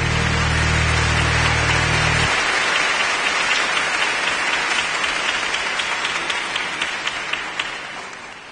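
Audience applause, a dense mass of clapping. Music underneath stops about two seconds in. Later a few separate claps stand out, and the applause fades out near the end.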